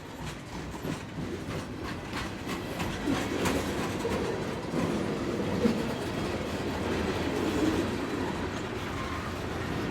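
Train moving slowly along the track: the railcars rumble, and the wheels clack and knock irregularly over the rail joints. It grows louder over the first few seconds as the train comes closer.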